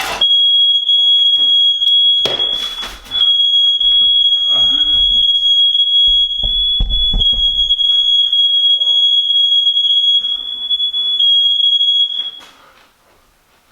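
Smoke alarm sounding one continuous high-pitched tone, set off by smoke from bread burning in a toaster. The tone breaks off briefly about three seconds in and stops shortly before the end, with several knocks and thumps alongside.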